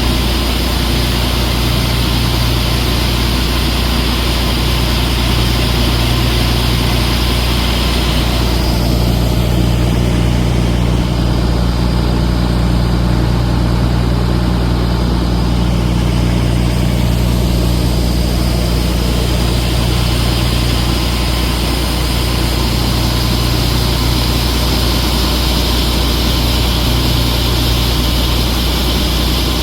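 Heavy diesel engine of a John Deere harvest machine running steadily. Its higher hiss drops away from about eight seconds in for several seconds, then returns.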